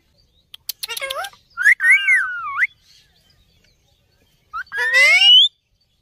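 Indian ringneck parrot calls: two short pitched calls that bend up and down in the first three seconds, then a pause, then a louder call that rises in pitch near the end.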